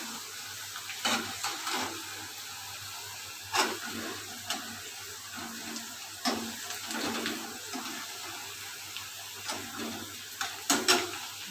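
Chopped garlic sizzling in hot oil in a pan, with a spatula scraping and clicking against the pan now and then as it is stirred while it lightly browns.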